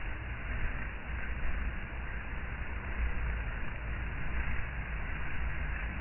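A dense mass of honey bees buzzing around a crowded hive as a swarm leaves it: a steady, even drone with a low rumble underneath.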